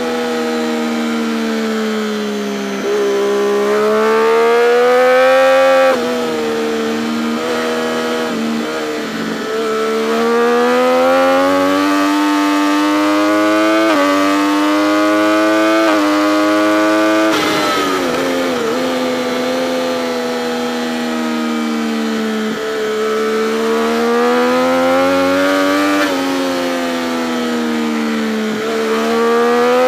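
Triumph Daytona 675's three-cylinder engine under hard acceleration on track, its pitch climbing and dipping at each upshift, with wind rush over it. About two-thirds through the pitch drops steeply with short throttle blips as it brakes and downshifts for a corner, then it climbs through the gears again.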